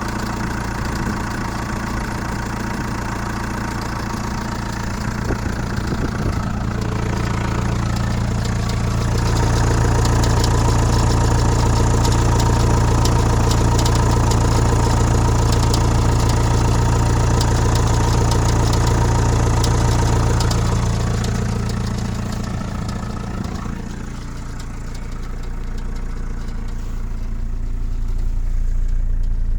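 Chrysler Voyager 2.8 CRD four-cylinder common-rail diesel idling at a steady speed, with the noise the owner finds strange after the van stood unused for a couple of months. It grows louder for about ten seconds from around a third of the way in, then eases off.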